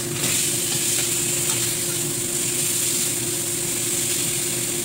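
A whole fish sizzling steadily in shallow oil in a stainless steel wok while a metal spatula turns it over, with light scrapes of the spatula on the pan near the start.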